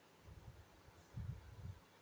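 Near silence, broken by a few low, muffled bumps about half a second in and again just after a second in.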